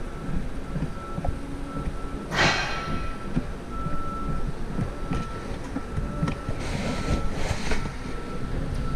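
Hands and a tool knocking and scraping against the plastic fog light housing and bumper while the lamp's single mounting screw is undone from behind, with a louder brief rush of noise about two and a half seconds in.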